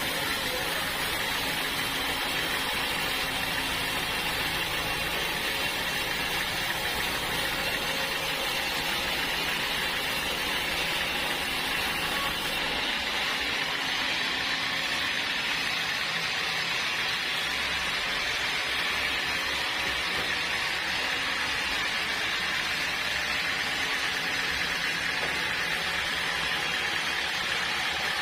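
Sawmill running, its blade sawing through hard acacia wood with a steady hiss over a machine drone. About halfway through, the low rumble drops away while the hiss carries on.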